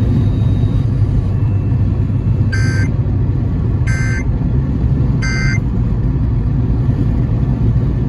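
Three short bursts of Emergency Alert System data tones from the car radio, about a second and a half apart: the end-of-message code that closes the tornado warning. Steady road and engine noise inside the moving car runs underneath.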